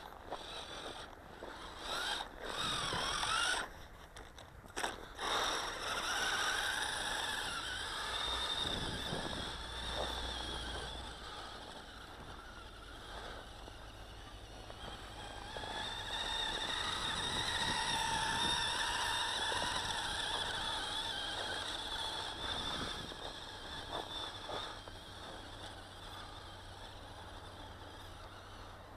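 Small electric motor and geared track drive of a toy RC snowmobile whining as it crawls slowly over snow, the pitch wavering up and down with the throttle and swelling for several seconds past the middle. A few sharp clicks come between about two and five seconds in.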